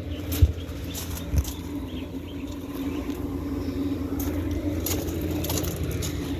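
Air conditioner units running with a steady hum. Two short knocks come in the first second and a half.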